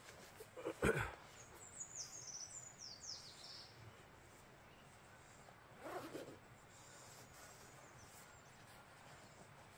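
A bird singing a short run of falling high notes, each note sliding downward, over quiet outdoor ambience. A sharp knock comes just before the song, about a second in, and a duller clunk follows about six seconds in.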